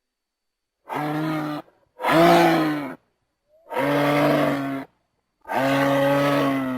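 Massospondylus dinosaur sound effect: four drawn-out roaring calls, each about a second long and held at a steady pitch, with short clean silences between them.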